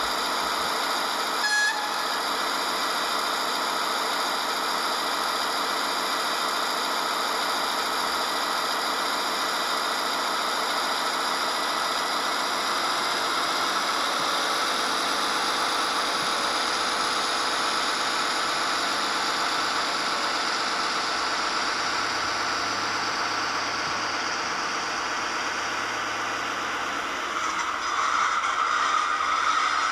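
Diesel engine sound of an H0 model V60 shunting locomotive, played by its LokSound 5 sound decoder through the model's small speaker. It runs steadily at the raised rpm of the "heavy train" function as the loco slowly pulls its wagons, and gets louder near the end.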